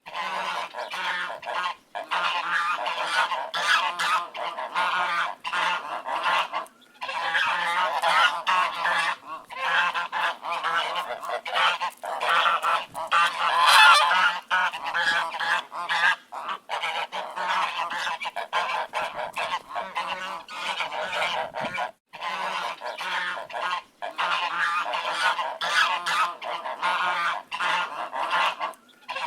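A flock of ducks quacking, many calls overlapping in a steady chorus, broken by a few very short gaps.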